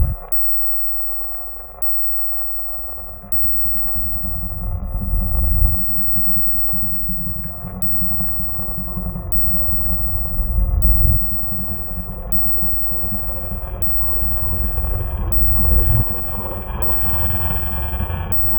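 Sound-designed monster growls: deep, distorted low rumbling that swells and cuts off sharply three times, over a droning horror ambience. A higher eerie drone joins about two-thirds of the way through.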